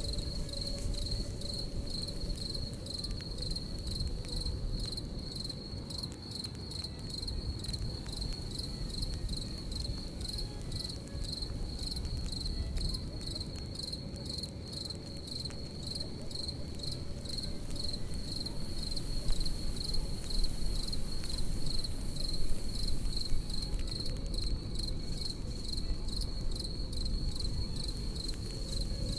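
Crickets chirping in a steady, pulsing high trill over a crackling campfire, whose snaps and pops grow a little louder past the middle.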